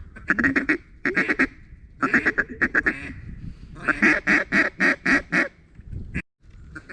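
Hand-blown duck call sounding a series of loud quacks in several runs: a quick chatter, a short burst, then a more even sequence of about six quacks. A brief sharp sound and a moment of dead silence come about six seconds in.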